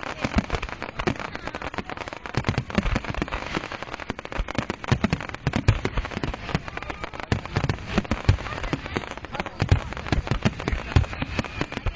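Fireworks finale barrage: many rapid, overlapping low booms with dense crackling between them.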